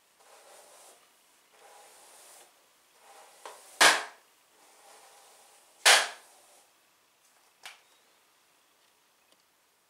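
Soft, repeated swishes of a hairbrush drawn through long hair, broken by two loud, sharp bangs about two seconds apart and a fainter third one a little later.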